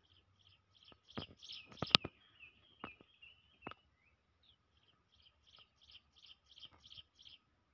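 A small bird calling a quick series of short high chirps, about four a second, then a run of lower falling notes, then the chirp series again near the end. A few sharp clicks sound through it, the loudest about two seconds in.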